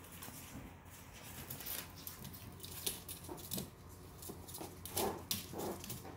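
Yorkshire terrier puppy mouthing and pawing at a floor vent grille: a scattered run of small sharp clicks and scrapes, loudest about five seconds in.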